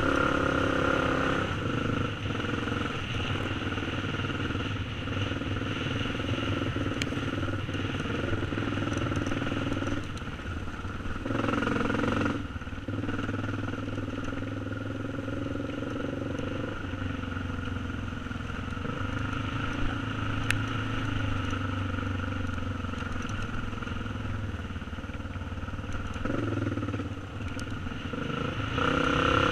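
Yamaha TT350's air-cooled single-cylinder four-stroke engine running as the dirt bike is ridden along a trail, the throttle easing and opening. It revs louder briefly about eleven seconds in and again near the end.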